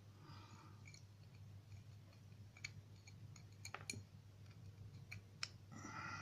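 Faint, scattered small metallic clicks and taps of a lock and hand tools being handled during disassembly, with a few sharper ticks in the second half, over a faint low hum.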